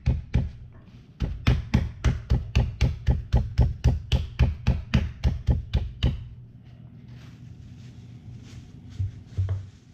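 Meat mallet pounding a chicken breast flat through plastic wrap on a cutting board: a quick, even run of about four knocks a second that stops about six seconds in, then a couple of softer knocks near the end.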